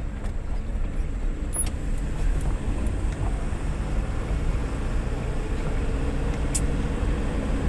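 Vehicle driving on a dirt track, heard from inside the cab: steady low engine and road rumble, with two brief light clicks.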